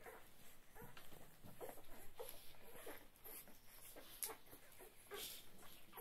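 Nursing puppies making a string of faint, short squeaks and whimpers while they feed.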